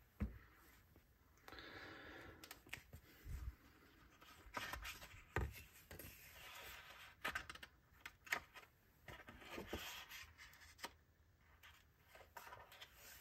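Sketchbook pages turned by hand: quiet paper rustles and swishes as each page is flipped. A few soft knocks come as the book is handled on the table.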